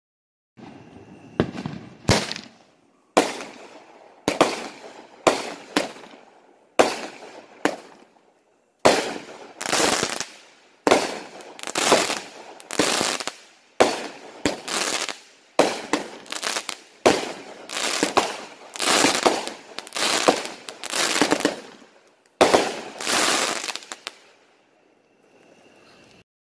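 A 16-shot, 200-gram 'Creeper' firework cake firing its shots one after another, roughly one loud bang a second, each followed by a fading tail, then a faint trailing sound before it stops.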